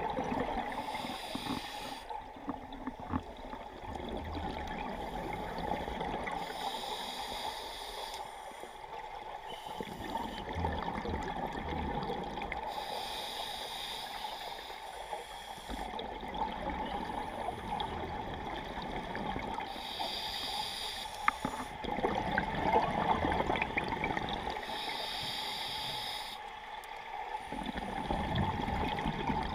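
Scuba diver breathing through a regulator underwater: a hiss on each inhale about every six seconds, five times, with bubbling, gurgling exhales in between.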